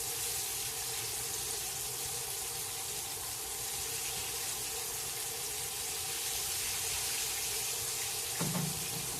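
Floured fish fillets frying in hot peanut oil in a cast iron pan, giving a steady sizzle throughout.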